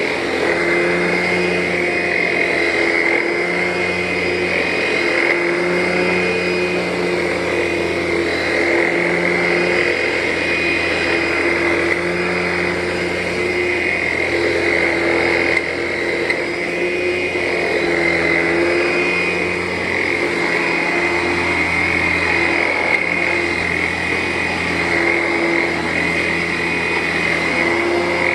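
Vacuum cleaner running steadily over carpet with a high motor whine. Its pitch and level shift slightly every second or two with the push and pull strokes.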